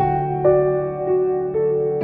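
Slow, relaxing background music: held notes with a new one struck about every half second.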